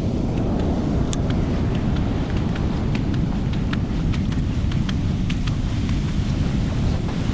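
Big ocean surf breaking and washing, with wind buffeting the microphone, making a steady low rush. A scattered run of light, sharp clicks sounds through the middle.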